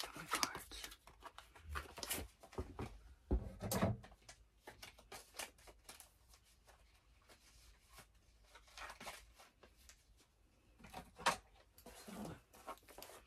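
Irregular rustling, clicks and light knocks of clothes and objects being handled, loudest in a few short clusters.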